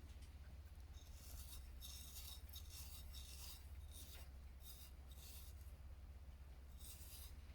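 Faint scratching and rubbing on an old pocket watch as it is handled and worked over, a string of short scrapes.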